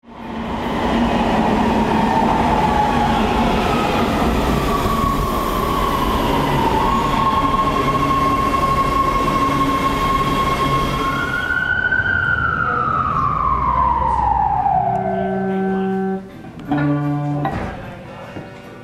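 Los Angeles Metro train running with a loud rumble and a steady whine, then the whine falls in pitch over about three seconds as the train slows. About three-quarters of the way through, music with clear bell-like notes comes in.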